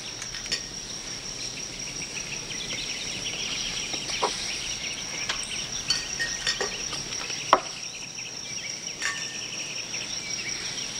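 Steady high-pitched insect chirring, like crickets, with a few short light clicks and knocks scattered through it.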